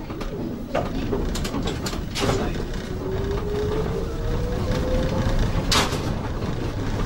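Solingen trolleybus under way, heard from the cab: a low running rumble with the electric motor's whine rising slowly in pitch as it gathers speed, and several sharp clicks.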